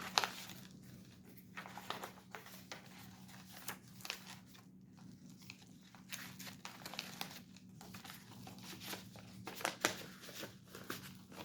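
Paper and packaging rustling and crinkling in short, scattered handling noises as papers are folded and put back into a box.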